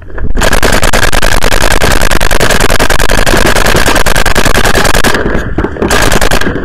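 Electronic paintball marker, a Planet Eclipse CS1, firing in long rapid strings, very loud and close, starting suddenly about a third of a second in, with two short breaks about five seconds in before it fires again.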